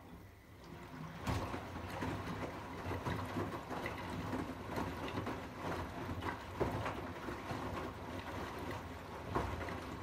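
Arçelik 8120 PMG front-loading washing machine on its rinse cycle: the drum starts turning about a second in, tumbling wet laundry with sloshing and splashing water and soft knocks.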